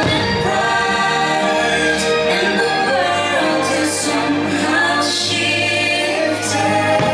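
Loud, steady show music with choir singing, broken by a few short sharp accents.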